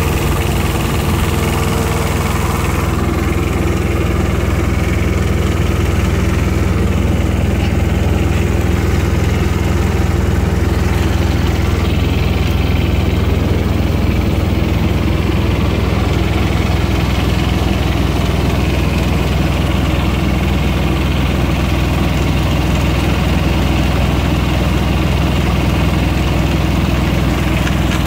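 Small diesel engine of a ComfortPro auxiliary power unit (APU) running steadily.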